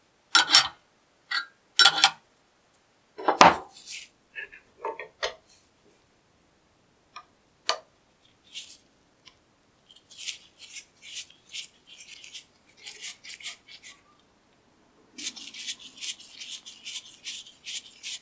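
A steel wrench clanking down among metal parts in a few sharp knocks. Then a flat screwdriver scratches at the rusty crank-handle hub of an old cast-iron Gressel bench vise, first in scattered strokes and then in a quicker run of short scrapes.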